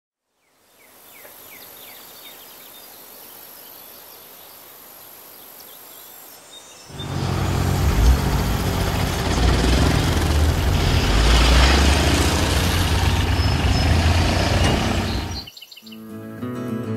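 Quiet rural ambience with a few birds chirping; about seven seconds in, a farm vehicle's engine comes in loud and steady, heavy in the low end, and cuts off suddenly near the end.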